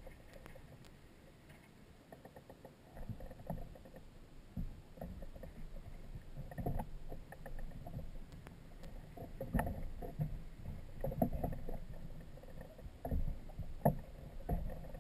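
Irregular muffled knocks and rustles, busier after about three seconds, while the microlight trike's engine is not running.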